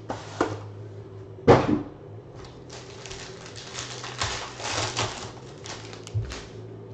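Foil trading-card pack being torn open, its wrapper crinkling and crackling for a few seconds. A knock is heard about a second and a half in, as of a card box set down on the table, with a few lighter clicks of handling.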